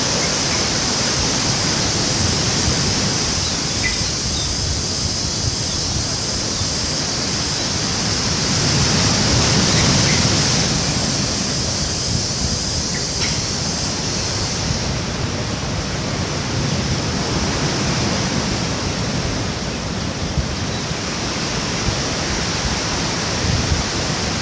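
Steady wash of waves breaking on a beach, mixed with wind noise on the microphone. A high, steady hiss sits over it and stops about fifteen seconds in.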